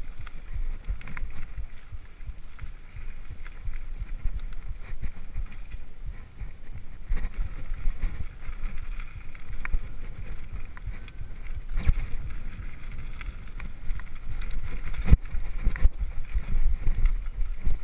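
Mountain bike descending a dirt singletrack: a constant low rumble of wind on the microphone and tyres on the trail, with rattling from the bike and sharp knocks over bumps, the two loudest in the last third.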